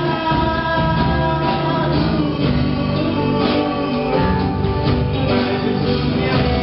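Live gospel worship song: a man singing into a microphone over a band with drums.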